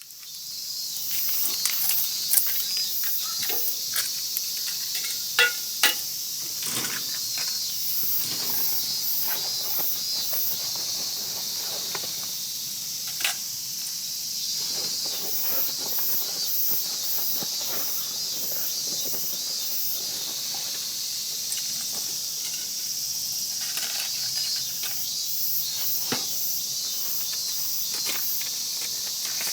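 Wood fire crackling with scattered snaps and a few sharp louder pops in the first six seconds, over a steady high chorus of insects chirping in pulses. The sound fades in over the first second.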